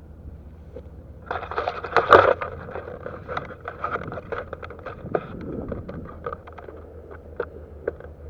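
Dry grass and brush crunching and rustling as someone pushes through it. It starts about a second in, is loudest around two seconds, and thins into scattered cracks and snaps toward the end.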